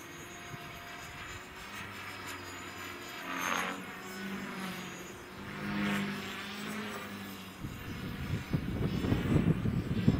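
Small RC model aircraft buzzing overhead, its motor and propeller note swelling twice as it flies past. From about two thirds of the way in, gusty wind buffets the microphone with a low rumble.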